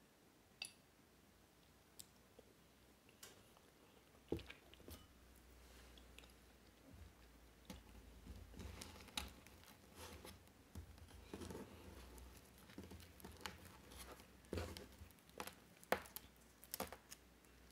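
Flaky puff pastry of a Nutella twist crackling and tearing as it is handled and pulled apart by hand: soft, crisp crackles, a few isolated clicks at first, then a busier run of them through the second half.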